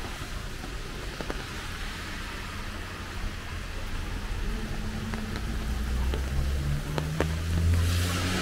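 Steady rain on a wet street. About halfway in, a pickup truck's engine comes in and rises in pitch, loudest near the end, with tyres swishing on the wet road.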